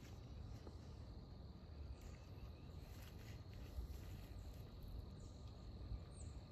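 Quiet outdoor ambience: a faint, steady, high-pitched insect drone over a low rumble, with a few light rustles.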